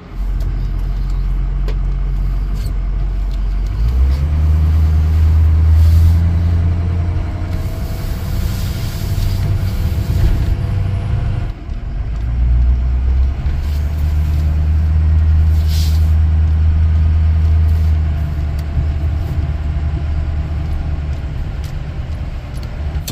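Ford Power Stroke diesel pickup engine running while driving, heard from inside the cab. It pulls harder about four seconds in with a faint whine over it, eases off briefly near the middle, then pulls again.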